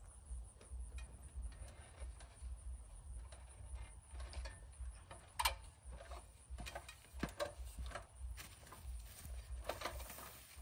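Scattered light clicks and knocks of a man on an aluminium stepladder, working at a wooden frame and climbing down the rungs, with the sharpest click about halfway through. A fluttering low rumble runs underneath.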